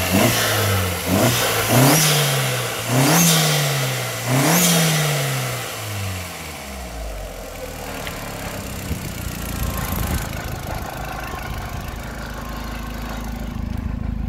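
Modified Skoda Octavia vRS 1.8-litre turbocharged four-cylinder engine revved in a few quick blips, each rising and falling back. It then settles into a steady idle from about six seconds in.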